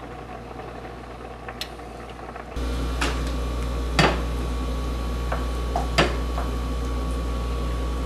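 Wooden spoon scraping and knocking against a stainless steel pan as thick polenta is scooped out into a bowl, with a few sharp knocks. A steady low hum starts partway through and runs under the knocks.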